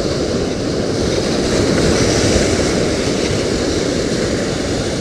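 Ocean surf washing in and churning over the rocks, a loud, steady rush of whitewater.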